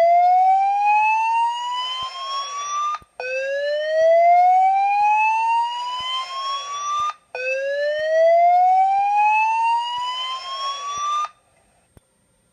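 Fire-Lite voice evacuation alert tone, a slow whoop played through a Gentex SSPK24CLPW fire alarm speaker strobe. A loud tone sweeps upward over about four seconds and starts again from the bottom, three rises in all, then stops about a second before the end.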